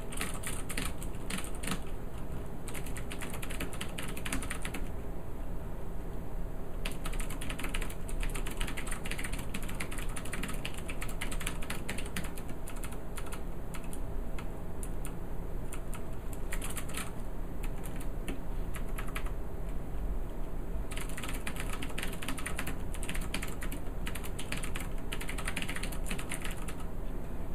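Typing on a Xarmor U9 Plus mechanical keyboard with Cherry MX Blue switches: rapid clicky keystrokes in runs of several seconds, with a couple of short pauses.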